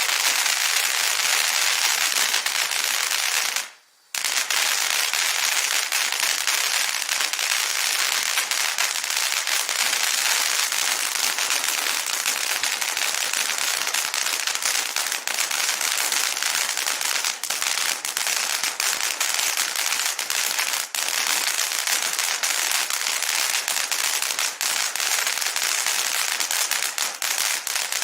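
Popcorn fountain firework burning with a continuous hiss full of dense crackling pops. The sound cuts out for a moment just before four seconds in, then carries on unchanged.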